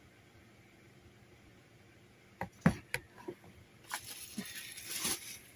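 Low room tone, then a few sharp knocks and taps about two and a half seconds in, followed by rustling and crinkling as cardboard and packaging are handled in a shipping box.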